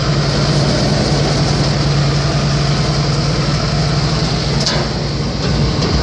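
Grape harvester's engine running steadily with a low, even hum while its hopper tips harvested grapes into a trailer. There is a short click about four and a half seconds in.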